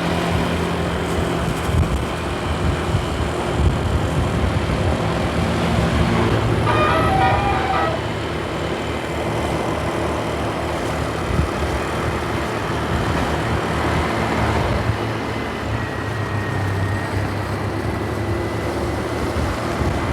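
Bus engine and road traffic running steadily, with a short burst of a multi-tone horn about seven seconds in.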